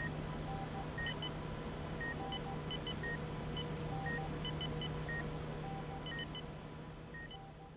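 Hospital hallway ambience: short electronic beeps from hospital equipment at three different pitches, repeating about once or twice a second, over a steady low hum and hiss. It fades out near the end.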